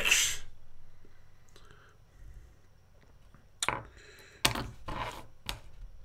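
A few sharp clicks and knocks in an otherwise quiet pause: four or five of them over about two seconds, starting about three and a half seconds in.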